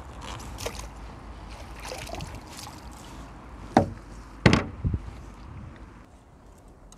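Handling noises as a freshly landed crucian carp is dealt with in the landing net at the angler's seat: rustling and light water noise, with a sharp knock a little under four seconds in and two more knocks about half a second apart soon after.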